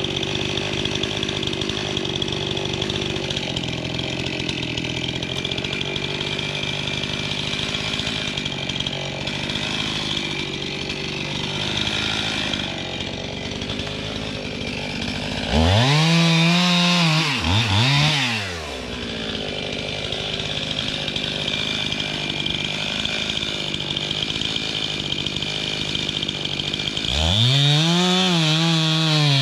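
Chainsaw running steadily, then revved up hard twice: for a couple of seconds about halfway through, and again near the end. At high throttle the pitch wavers up and down.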